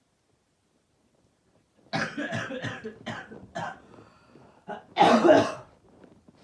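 A person with a cold coughing: a quick run of four or five coughs about two seconds in, then one louder burst near the end.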